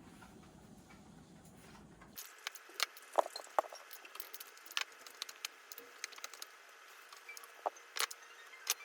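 A low steady hum, then after about two seconds a run of light clicks and clinks of kitchen items being handled.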